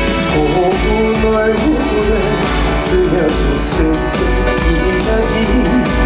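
Live trot band music with guitar and a steady low beat, played loud over a concert sound system.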